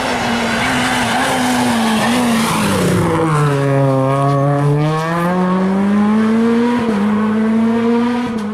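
Rally car engine run hard on approach, its note falling as the car brakes into a tight bend about three seconds in, then rising again as it accelerates out and away.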